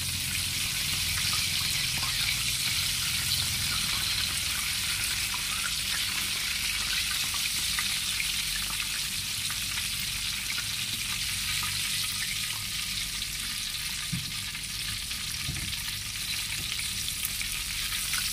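Hot oil sizzling steadily in a wok around battered, meat-stuffed chillies as they finish deep-frying.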